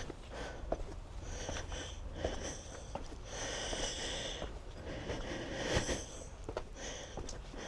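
Breathing close to a body-worn microphone, with short hissy breaths every second or two. Scattered light knocks and rubbing from the mic and clothing are mixed in.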